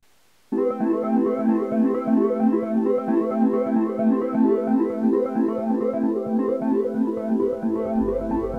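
Background music, an electronic synthesizer and keyboard tune with a quick repeating pattern, starting about half a second in after a moment of silence. A deep bass comes in near the end.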